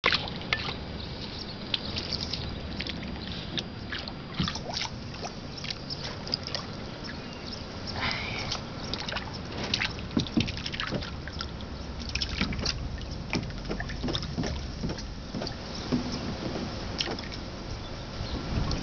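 Crested duck dabbling its bill in shallow pool water while foraging for fish: a continuous run of small splashes, sloshes and sharp irregular clicks.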